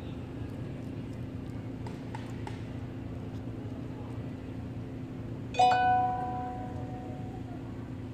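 A single bell-like ring, struck sharply and fading away over about a second, over a steady low hum.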